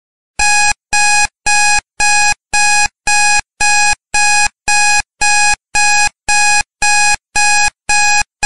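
Electronic timer alarm beeping, a steady run of short, identical, loud beeps about two a second, starting about half a second in: the countdown has reached zero.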